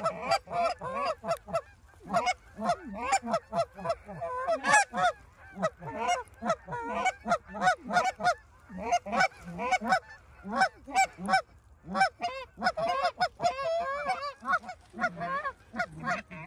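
Canada geese honking and clucking, many short calls in quick succession, several a second, without a break.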